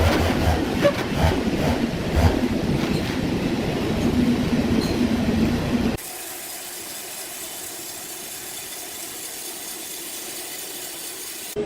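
Sawmill machinery clanking and rumbling, with repeated metallic knocks. After about six seconds it cuts off abruptly to a quieter, steady hiss.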